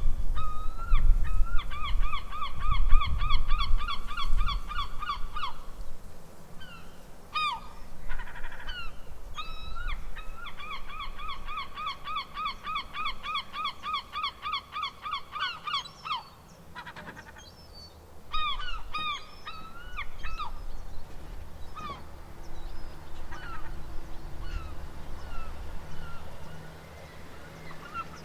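Seagulls calling: two long runs of fast repeated cries, about four a second, each lasting several seconds, with scattered single cries between and after them. A low rumble runs underneath, loudest in the first few seconds.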